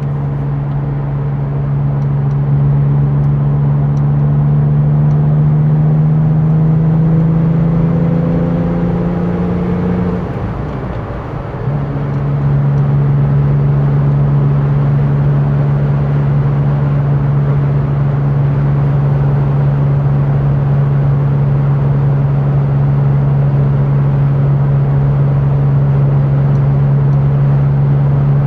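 Porsche 911 (996) Turbo's twin-turbo flat-six pulling under light acceleration, its note rising slowly for several seconds. About ten seconds in it dips briefly as the gearbox shifts up, then it runs at a steady cruise with an even drone.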